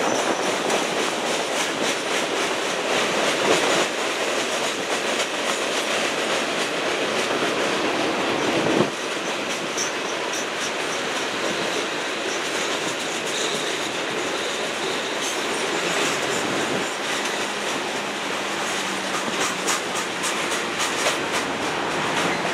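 Freight cars of a CSX train, bulkhead flatcars carrying railroad ties, rolling steadily past with a continuous rumble and wheels clicking over rail joints.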